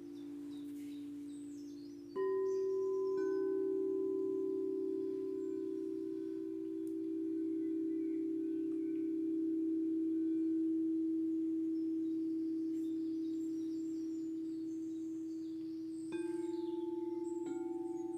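Singing bowls struck and left to ring, several long overlapping tones sustaining and slowly fading. A bowl is struck about two seconds in and another a second later, and two more strikes come near the end.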